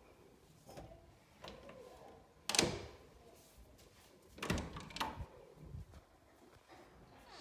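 Pantry door being handled: a sharp knock about two and a half seconds in, then a pair of knocks and a few lighter clicks around the middle.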